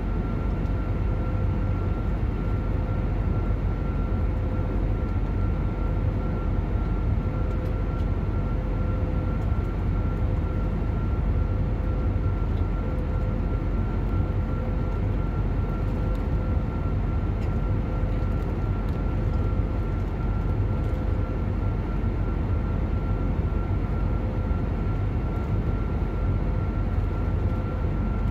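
Cabin noise of an Airbus A321neo in flight, heard from a window seat beside its Pratt & Whitney geared turbofan engine: a steady, unbroken rush of engine and airflow noise, heaviest in the low end, with a lower hum and a higher whine held steady over it.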